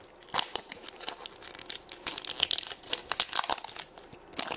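Thin printed wrapper crinkling and tearing as it is peeled by hand off a plastic surprise egg: a run of quick, irregular crackles, densest in the middle, with a short pause near the end.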